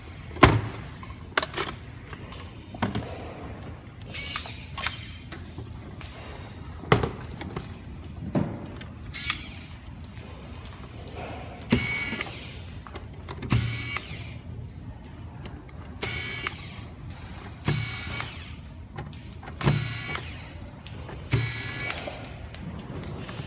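Corded electric screwdriver running in about six short bursts, roughly two seconds apart, as it backs screws out of a robot vacuum's plastic housing. Before the bursts start, plastic clicks and knocks from the housing being handled.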